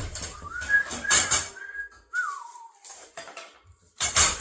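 A person whistling a few notes of a tune: rising notes, a held note, then a long falling note about two seconds in. This is mixed with clanks and rattles as clothing-rack parts are wiggled together, with a loud clatter near the end.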